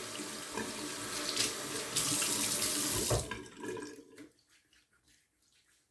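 Water running from a sink tap, cut off a little after three seconds in, with faint trickling as it dies away.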